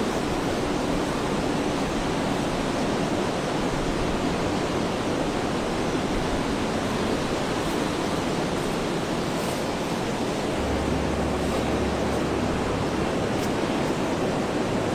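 Heavy rain falling, a steady even rush of noise with no breaks.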